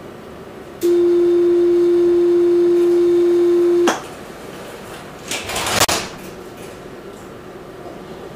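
A Luas tram's electronic warning tone sounds at one steady pitch for about three seconds and cuts off sharply. About a second and a half later comes a short hiss ending in a click.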